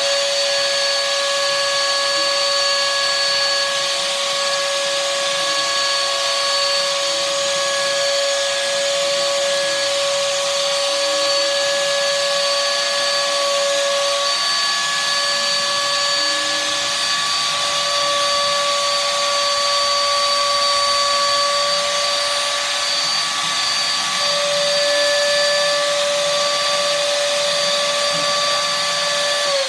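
Compact trim router used as the spindle of a home-built CNC router, running steadily at high speed with an even high-pitched whine and hiss while the gantry carriage moves.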